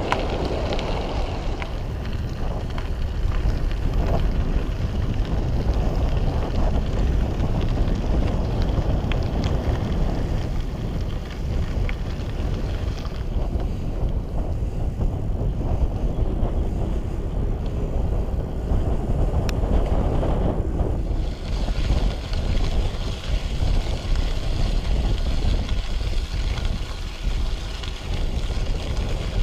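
Wind buffeting the camera microphone while cycling, a steady low rumble without a break.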